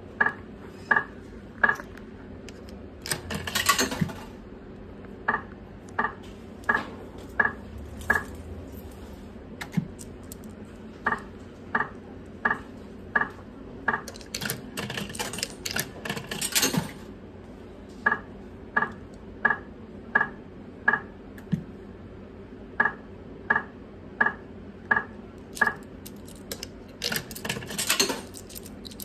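Five-reel video slot machine spinning: each spin ends in a run of five short electronic beeps, one for each reel coming to a stop, about 0.7 s apart. Brief noisy rattling bursts come between some of the spins.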